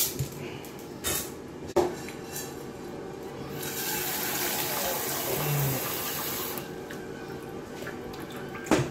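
A few knocks as dry spaghetti goes into a metal saucepan, then a kitchen tap runs for about three seconds, filling the pan with water. Near the end the saucepan is set down on a glass-ceramic hob with a knock.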